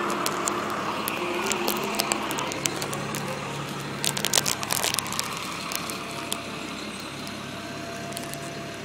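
Fire truck's engine running steadily, with a cluster of sharp crackles and clicks about four seconds in.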